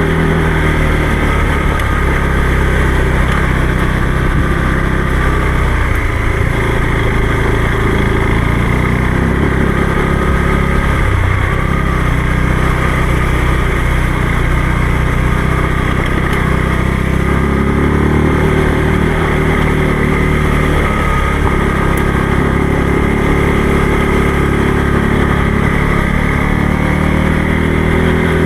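Motorcycle engine running at a steady, unchanging pitch while being ridden.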